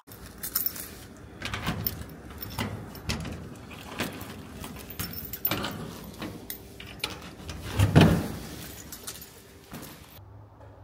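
Irregular clicks, knocks and rattles of a metal shed door and its lock being handled, with one heavier thump about eight seconds in.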